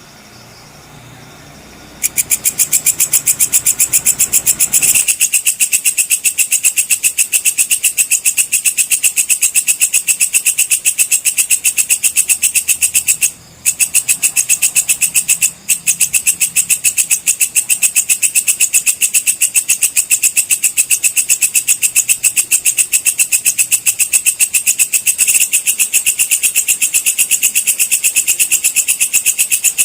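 Walang kecek (belalang kecek) insect calling: a loud, rapid, even train of high chirping pulses that starts about two seconds in and runs on, dropping out twice for a moment near the middle.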